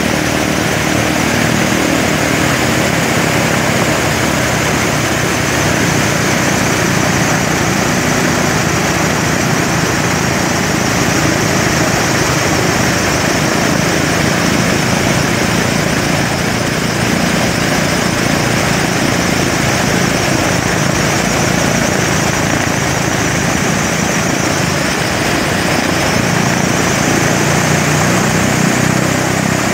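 A Lockheed P2V Neptune airtanker's Wright R-3350 radial piston engine running steadily just after start-up, its four-blade propeller turning. A high whine in the engine sound dips and climbs again in the last few seconds.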